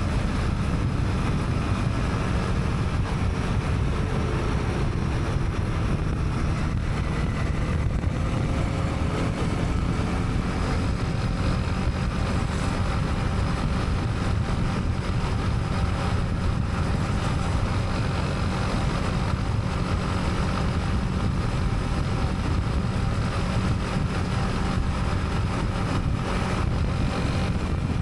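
Honda CB300R's single-cylinder engine running on the move, its pitch slowly rising and falling with the throttle, over a steady low rumble of wind and road noise.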